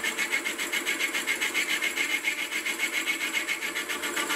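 Slitting saw on a Sieg X2.7L mill cutting a screwdriver slot into the head of a cold-rolled mild steel screw: a steady metal-cutting sound over the running mill motor, pulsing fast and evenly several times a second.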